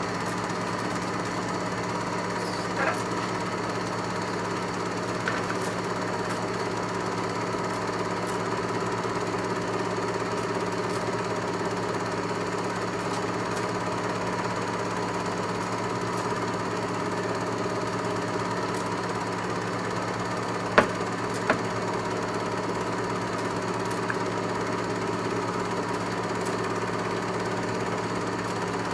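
Film projector running: a steady mechanical whirr and rapid clatter with an even hum, broken by a few sharper clicks, the loudest two close together about two-thirds of the way through.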